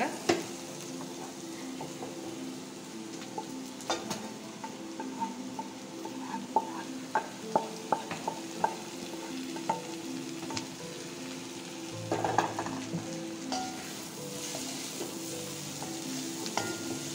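Chicken pieces and vegetables sizzling in a steel kadai while a perforated steel spatula stirs and turns them, with a series of sharp taps of the spatula against the pan, most of them in the middle stretch.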